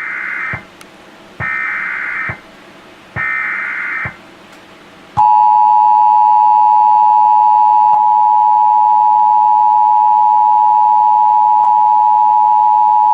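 Emergency Alert System tones for a flash flood warning: three short bursts of warbling digital SAME header data, then about five seconds in the steady two-tone EAS attention signal, held to the end.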